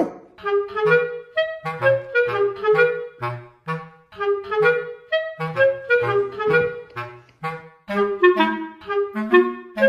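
Background music: a clarinet-like woodwind melody of quick, short notes over a bass line.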